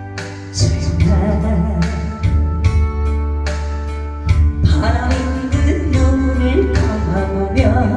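A woman singing a Korean trot ballad over a karaoke-style backing track with a steady beat, her voice clearest in the second half.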